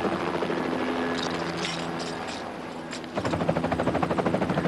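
Helicopter running, a steady drone with fast rotor chop. It dips slightly and then comes back louder a little after three seconds in.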